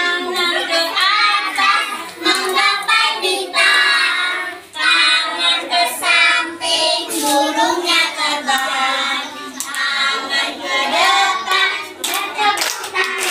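A group of young children singing together with a woman's voice among them, clapping their hands along with the song.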